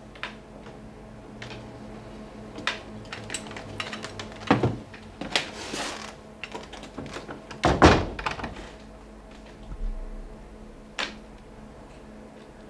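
A door being handled and footsteps in a small room, with scattered knocks and two heavy thumps, about four and a half and eight seconds in.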